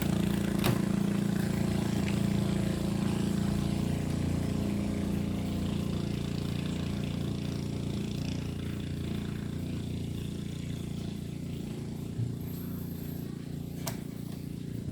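An engine running steadily, slowly fading away, with a few light clicks.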